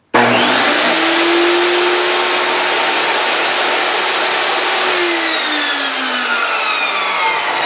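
Bosch GTS1031 10-inch jobsite table saw started from standstill: the motor and blade come up to speed within a fraction of a second and run with a loud steady whine. About five seconds in it is switched off and the whine falls in pitch as the blade coasts down.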